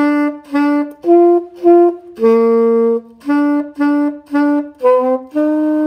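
Alto saxophone playing a simple melody in separate tongued notes: four short notes, a longer lower note just over two seconds in, then a run of short repeated notes leading into a long held note near the end.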